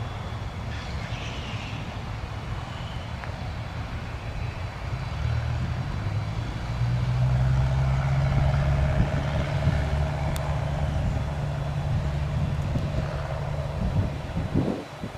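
Cessna 152's four-cylinder Lycoming engine running as a steady low drone, growing louder about six seconds in and then holding steady.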